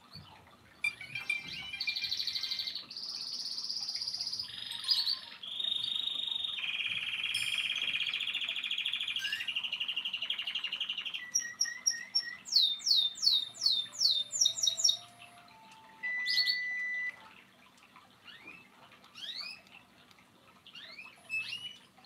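Nokia 1112 ringtone previews playing one after another through the phone's speaker as the ringing-tone list is scrolled: a string of short electronic melodies, alarm beeps and rapid rising chirps, each changing after a second or so. About 17 seconds in the tones stop, and only faint, scattered high chirps remain.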